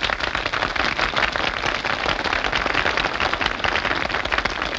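Studio audience applauding steadily: a dense patter of many hands clapping.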